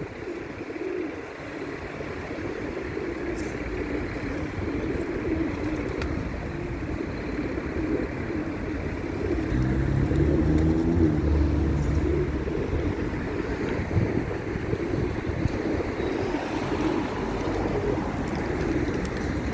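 A group of pigeons cooing, with low rumbling engine noise that swells about halfway through.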